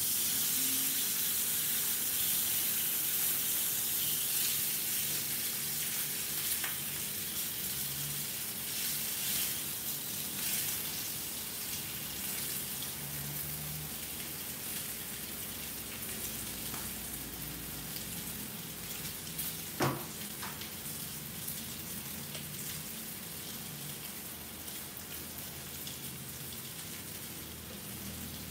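Salmon steak sizzling in hot oil in a cast-iron skillet: a steady frying hiss that slowly dies down, with one sharp click about two-thirds of the way through.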